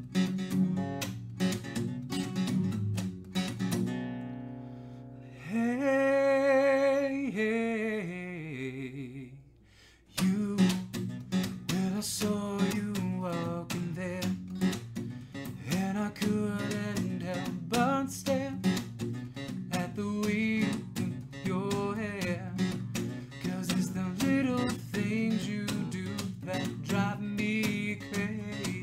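Acoustic guitar strummed, with a voice singing along over it. The playing stops briefly about ten seconds in, then the strumming starts again.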